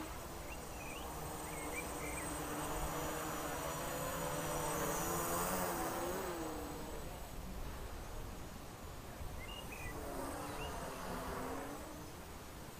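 Small homemade quadcopter's motors and propellers buzzing in flight, the pitch wandering up and down as the throttle changes. The buzz is loudest around the middle and fades somewhat near the end.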